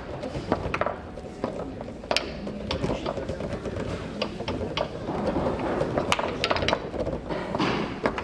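Foosball play on a Tornado table: sharp, irregular knocks and clacks of the ball striking the plastic men and the table walls, with rods hitting their bumpers, over steady background noise.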